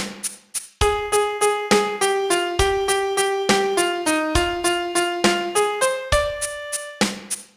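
Piano playing a song melody one note at a time, about three notes a second, over a low note struck at the start of each six-beat bar, in a swaying 6/8 rhythm. It pauses briefly just after the start and again near the end.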